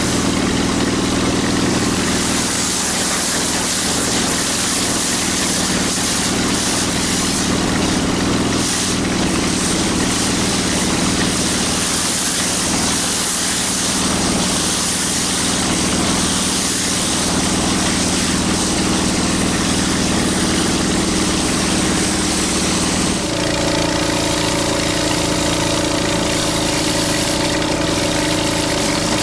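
Engine-driven pressure washer running steadily under the hiss of high-pressure water spraying on concrete. About two-thirds of the way in the sound changes abruptly and the engine hum becomes stronger and more even.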